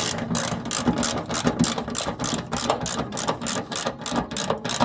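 Ratchet with a 7 mm socket clicking rapidly and evenly, about five clicks a second, while tightening a worm-drive hose clamp on a fuel pump hose.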